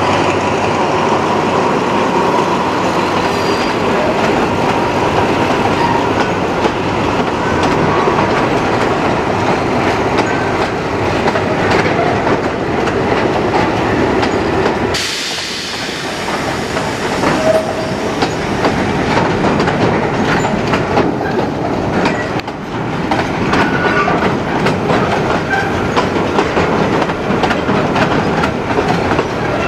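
Container flatcars of a long freight train rolling past at low speed, wheels clicking over the rail joints with a steady rumble and some faint wheel squeal. The sound breaks off abruptly about halfway and picks up again from a different spot.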